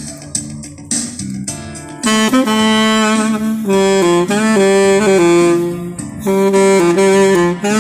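Recorded saxophone music: a guitar-and-bass backing, then a saxophone melody of held, sliding notes that comes in about two seconds in.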